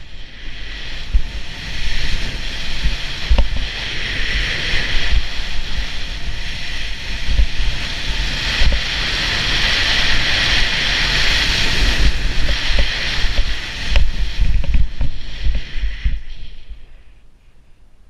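Skis hissing through powder snow on a fast downhill run, with wind buffeting the camera microphone in low gusts and a few sharp snow or pole knocks. The noise dies away near the end as the run slows.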